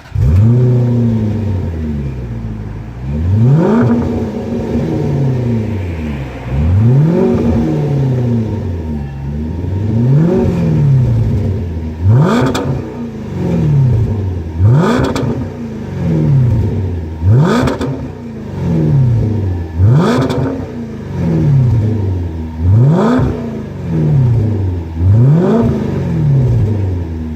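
Range Rover's 5.0-litre supercharged V8 through a Kahn Design aftermarket exhaust, opening with a loud flare and then revved about nine times. Each rev rises sharply and falls back toward idle, every two to three seconds.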